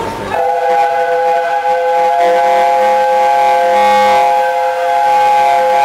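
Steam whistle of the Peppercorn A1 Pacific locomotive 60163 Tornado, sounding one long, steady blast of several notes at once that starts about half a second in.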